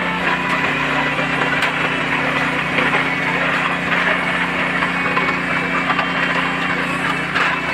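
Small engine running at a steady speed under a constant noisy rattle.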